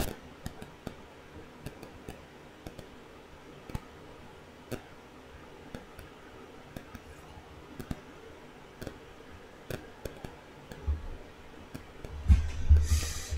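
Faint, irregular small clicks and ticks, roughly one or two a second. Near the end come low thumps and a short rush of hiss.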